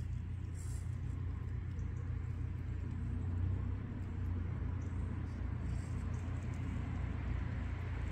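Absima Sherpa electric RC scale crawler's motor and drivetrain running at crawl speed as the truck climbs slowly over a rock, heard as a steady low rumble.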